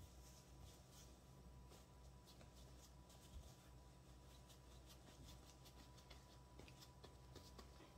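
Near silence, with faint soft rubbing and small scratchy ticks of hands rolling and patting bread dough on a floured countertop, over a faint steady hum.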